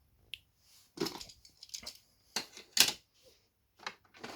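A die-cast Hot Wheels car clattering down the playset's plastic spiral ramp: a run of sharp plastic clicks and clacks, loudest a little under three seconds in.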